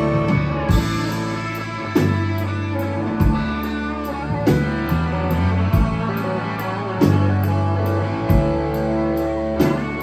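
Live rock band playing an instrumental passage: electric guitars over bass and drum kit, with strong drum hits landing about every second and a quarter.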